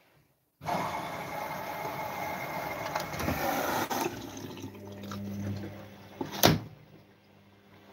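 Water rushing into a Gorenje front-loading washing machine through its detergent drawer as it fills, loud for about three seconds and then dying away. A single sharp knock near the end.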